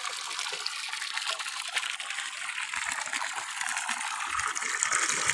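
Murky, sandy water gushing from a PVC outlet pipe and splashing into a muddy puddle: the discharge of a 0.5 HP submersible pump flushing out a newly drilled borehole. The gush is steady and grows louder near the end.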